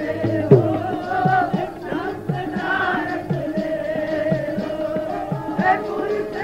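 Sikh kirtan: the shabad sung with a steady harmonium drone. Tabla keeps an even beat of about two strokes a second, the bass drum strokes bending down in pitch.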